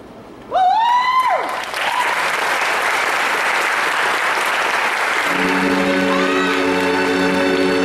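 Audience bursts into applause with a high, drawn-out cheer at the start, then keeps clapping; about five seconds in, orchestral music begins under the applause.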